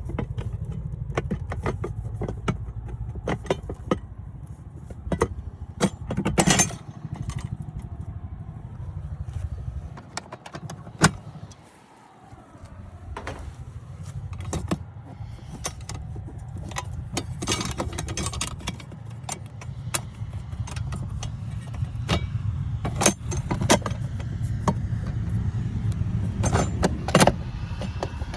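Metal clicks and clanks from handling HVAC disconnect boxes and pulling out their fuse blocks, some of them sharp and loud. Underneath runs a steady low rumble that drops out briefly about halfway through.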